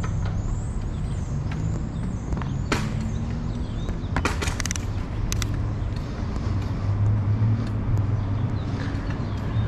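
Wind rumbling on the helmet-mounted camera's microphone and tyre noise from a bicycle rolling over city pavement, with a few sharp clicks and rattles about three and four to five seconds in.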